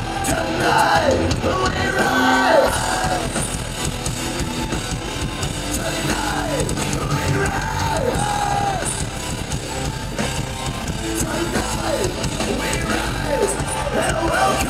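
A rock band playing live, heard from within the audience: distorted guitars and drums, with yelled vocals that slide down in pitch again and again over the music.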